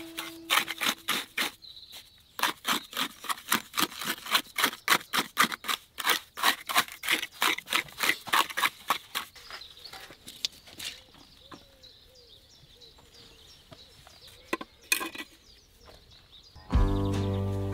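Steel trowel scraping and spreading wet mortar on a concrete footing in quick, even strokes, about three a second, for the first half. Then a few single knocks in a quieter stretch, and music comes in near the end.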